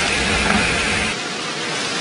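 Wet mud pouring and splashing into a car through its open side window: a steady rushing noise whose deep part thins out about a second in.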